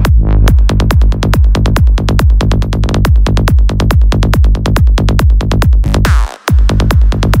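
Electronic dance music with a fast, steady four-on-the-floor kick drum; a rising sweep about six seconds in, then a brief cut to silence before the beat drops back in.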